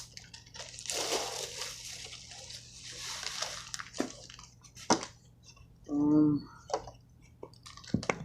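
Packaging crinkling and rustling as a new speaker is handled, followed by a few sharp clicks and knocks and a brief pitched tone about six seconds in.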